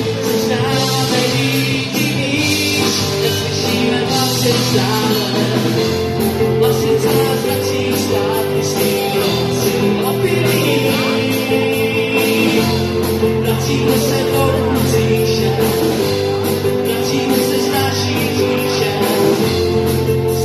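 Live rock band playing: electric and acoustic guitars, violin, drums and keyboard, with singing over them.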